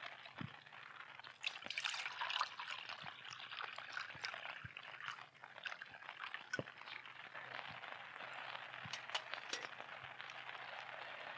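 Water poured from a plastic water bottle into a stainless steel camp cup, faint, over a scatter of small ticks and clicks.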